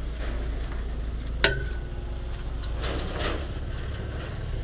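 Road traffic at a railway level crossing: a truck's engine running as it pulls away, with one sharp metallic clank and a short ringing tail about one and a half seconds in. Motorcycle engines come closer near the end.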